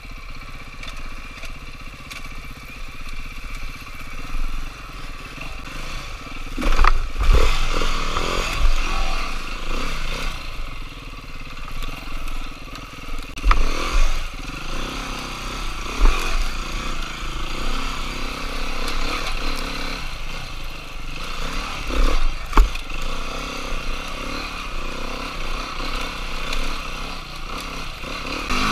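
Dirt bike engine running as it is ridden over rough trail, broken by several loud knocks and clatter from the bike hitting the ground a few seconds apart.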